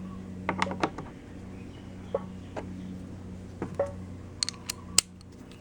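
Chickens clucking in short calls, over a low steady hum, with a few sharp clicks near the end.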